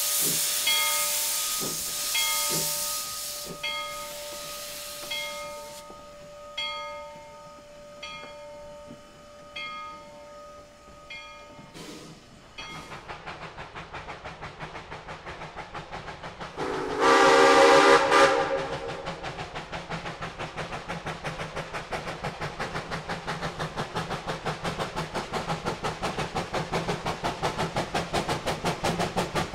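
Two-foot narrow-gauge steam locomotives. First, Bridgton & Saco River No. 7 works away with its exhaust chuffs fading and steam hissing. Then a second locomotive approaches with quick, even exhaust beats, gives one whistle blast of about a second and a half midway, and its chuffing grows louder toward the end.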